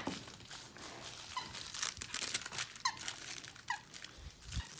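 Squeaker inside a plush dog toy squeaking as a puppy chews it: about three short squeaks, each dropping in pitch, over faint rustling.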